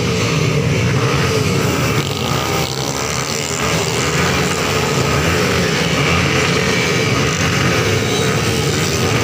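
Racing motorcycle engines running at high revs, their pitch rising and falling over and over as the bikes come round the circuit.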